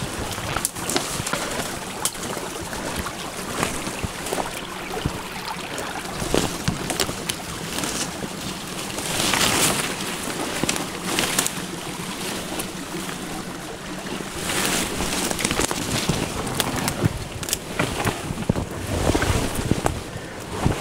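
Leaves and branches rustling and twigs crackling and snapping as a person pushes through dense brush and drags a long cut branch, in repeated spells of louder rustling.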